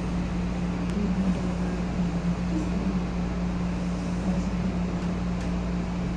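Steady low mechanical hum with even background noise, with a couple of very faint clicks.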